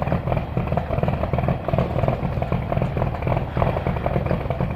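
Caterpillar 3306 inline-six diesel engine running cold with a rapid, even beat. It has been on the block heater for three or four hours but is still not running happily.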